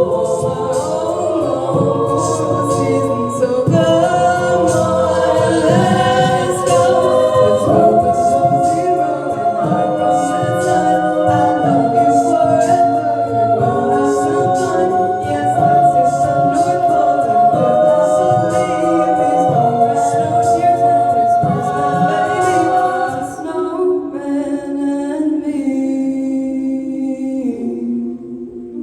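A cappella vocal ensemble singing in close harmony, sustained chords over a steady percussive vocal beat. The texture thins and quietens near the end.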